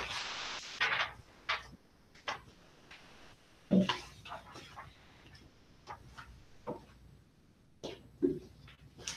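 Scattered short clicks and knocks of people handling papers and desks, with a brief rustle at the start and two louder thumps, about 4 and 8 seconds in.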